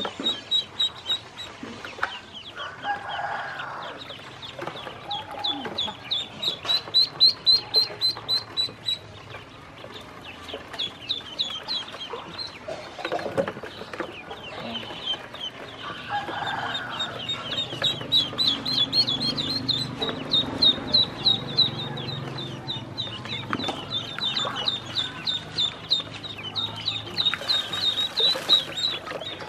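Ducklings peeping: rapid runs of short, high calls, several a second, rising and falling in loudness.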